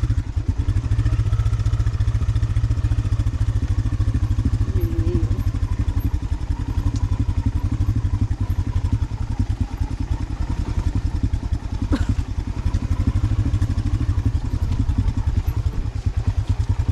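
Motorcycle engine running at low, steady revs with a rapid, even chugging beat. A single sharp knock comes about twelve seconds in.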